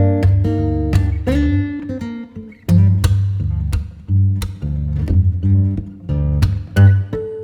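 Background music: acoustic guitar picked and strummed over a bass line.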